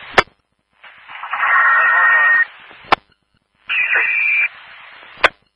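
Two-way radio traffic on a scanner: three short keyed transmissions with static hiss and muffled content, each cut off by a sharp squelch-tail burst followed by dead silence. A short steady tone sounds near the middle.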